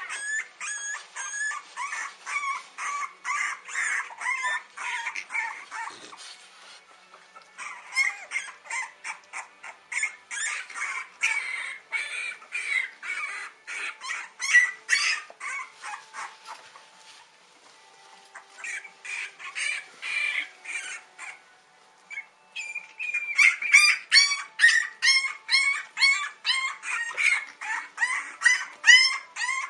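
A litter of young French bulldog puppies squealing and whimpering: rapid, short, high-pitched cries, several a second, broken by a few brief lulls and loudest near the end.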